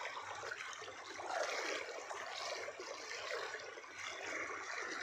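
Floodwater flowing over a submerged road: a steady rush of water.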